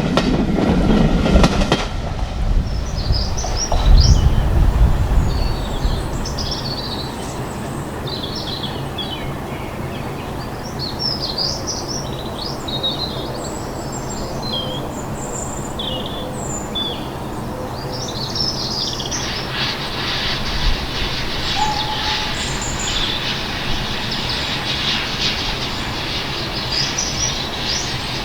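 The tail end of a passing train fades out in the first two seconds, with a heavy low thump about four seconds in. Then small birds chirp and call over a steady low rumble, with a rushing hiss coming in about two-thirds of the way through.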